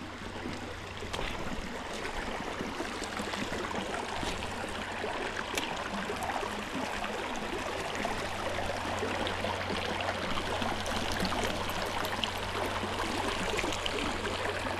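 Creek water running steadily, an even rushing with a low steady hum underneath and a few faint ticks.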